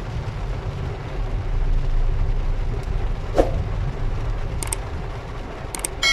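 Steady low rumble of a vehicle running, with a few short clicks near the end.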